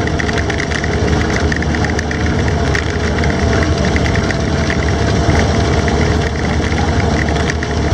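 Studebaker M29C Weasel tracked carrier heard from on board while moving: its Studebaker Champion flathead straight-six running steadily, with a constant clatter and rattle of the tracks and body.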